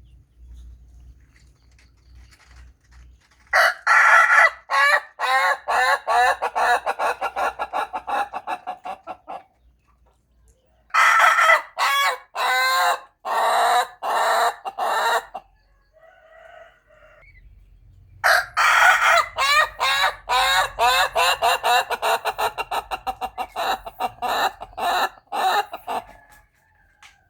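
Rooster crowing three times, each crow a long run of rapid, staccato notes that starts loud and thins out over several seconds.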